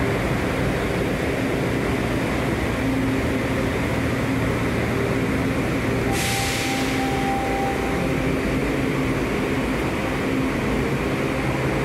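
Washington Metro subway train running with a steady rumble, and a short burst of air hiss about six seconds in.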